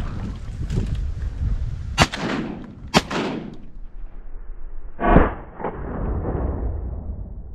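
Shotgun shots at a duck hunt: two sharp shots about a second apart, each trailing off in an echo, then a third, duller bang about two seconds later.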